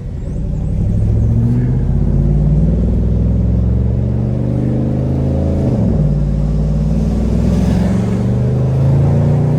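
Chevrolet Camaro SS's 6.2-litre V8 pulling under light acceleration. Its note climbs slowly, drops sharply about six seconds in as at a gear change, then climbs again.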